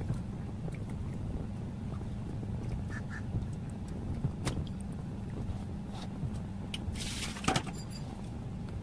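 Fish curry simmering in a pot on the stove: a low steady rumble with scattered small pops. Near the end a metal spoon goes into the pot with a brief scrape and a sharp knock.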